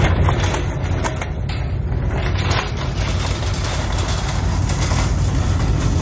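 Steady low rumble of an idling vehicle engine, with a crunching, rattling noise that grows fuller from about two and a half seconds in, as a shopping cart is pushed across packed snow.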